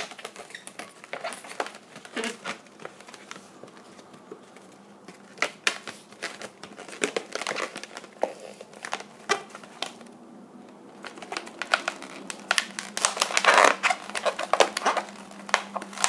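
Latex modelling balloon being twisted and worked by hand: irregular squeaks and rubbing of the rubber, busier in the last few seconds.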